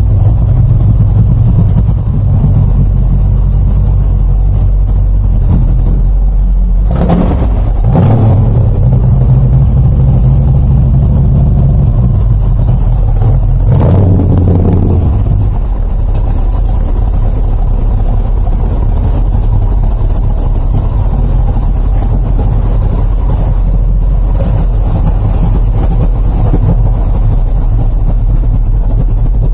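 The CAV GT40 replica's V8 engine idling. It is revved briefly about seven seconds in and again around fourteen seconds in, each time falling back to idle.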